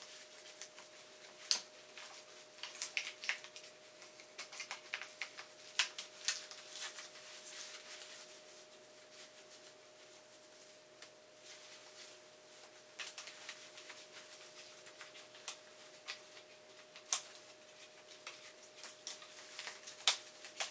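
Folded trekking poles and elastic cords being handled against a running vest: scattered light clicks, taps and rustles from the pole sections and cord fittings, busiest in the first several seconds and again near the end. A faint steady hum sits underneath.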